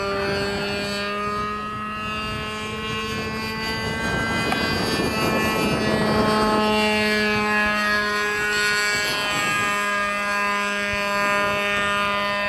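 Radio-controlled model aircraft's motor and propeller running in flight with a steady droning tone. It grows louder for a few seconds in the middle, and its pitch steps up slightly near the end.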